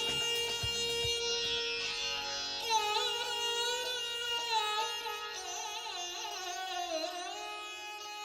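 Instrumental music with no singing. Low beats stop about a second in, then a string melody with sliding, wavering notes plays over held tones, slowly fading toward the end.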